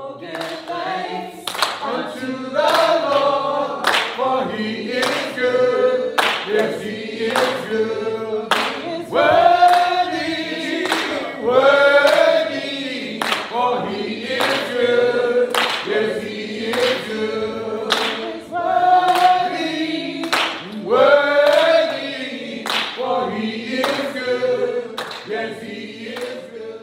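Gospel choir singing, with handclaps keeping a steady beat a little faster than one a second.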